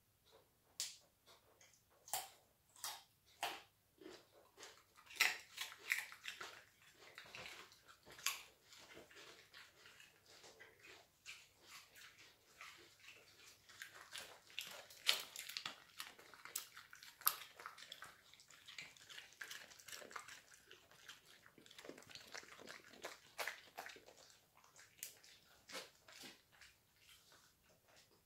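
A dog crunching and chewing pieces of raw carrot: a long run of irregular, crisp crunches, thickest in the middle stretch.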